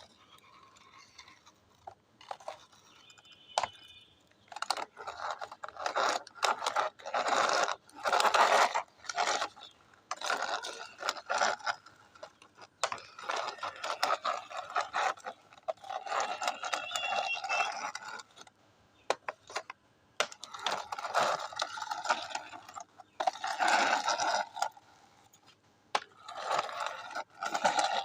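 Plastic toy vehicles being rolled and handled on a hard surface: stop-start bursts of scraping and rattling with sharp clicks, and a brief squeak a few times.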